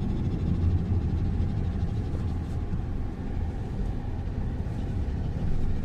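Tata Altroz hatchback driving along a rough, potholed road, heard from inside the cabin: a steady low rumble of tyres, suspension and engine.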